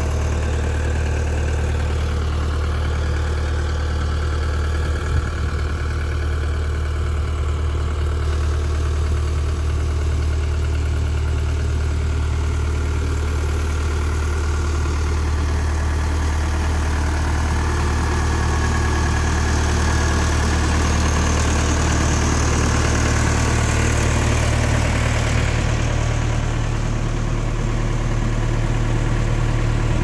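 JCB 210S backhoe loader's diesel engine idling steadily.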